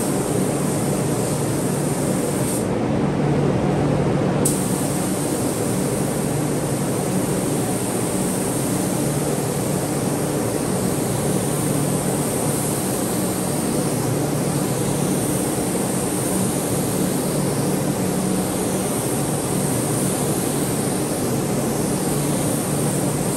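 Spray gun hissing as clear coat is sprayed onto a pinball cabinet, over the steady hum of a ventilation fan. The hiss stops for a couple of seconds about three seconds in, then resumes.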